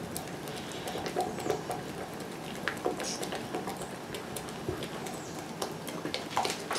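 Small spatula stirring a thick xanthan gum gel in a glass measuring jug, with light, irregular clicks and scrapes against the glass.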